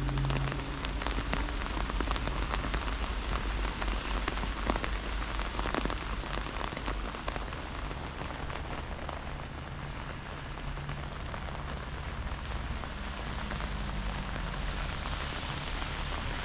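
Rain falling, with many drops ticking irregularly over a steady low rumble.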